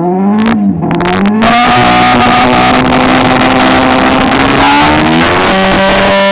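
Car engine revved hard during a burnout: the revs climb over the first second and a half, then are held high and nearly steady over a loud hiss, with a slight change in revs near the end.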